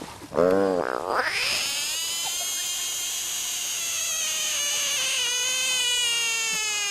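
A frog screaming: a short cry, then one long, high scream held for several seconds, its pitch sinking slowly.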